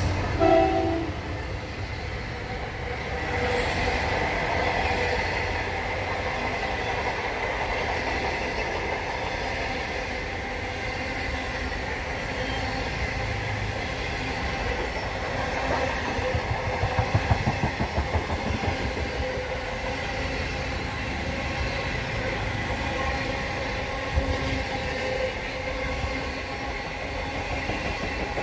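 Indian Pacific passenger train's stainless-steel carriages rolling past, a steady rumble of wheels on rail with faint steady wheel tones. About halfway through comes a short run of rhythmic clickety-clack.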